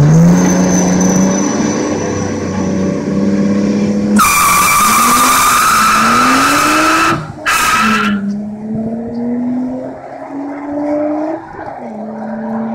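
Nissan Skyline R34 with a turbocharged RB25DET NEO straight-six held at high revs on the line for about four seconds, then launching with a long screech of wheelspin and a second short tyre chirp about a second later. The engine climbs and changes up several times as the car pulls away, growing fainter.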